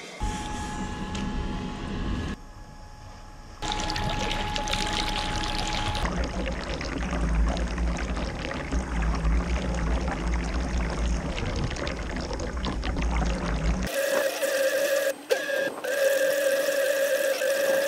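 Water trickling and sloshing around a small toy RC speedboat's hull as it moves, heard from a camera mounted on the boat. A steady high whine from the boat's small electric motor runs alongside, clearest in the last few seconds.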